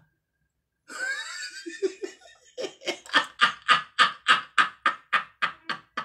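A man laughing hard. After about a second of silence, a breathy wheeze builds into a steady run of laughs, about four a second.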